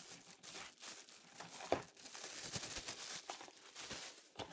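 Thin clear plastic wrapping crinkling and tearing as it is pulled off a new stainless steel kitchen faucet and its hoses, a continuous crackle made of many small sharp crackles.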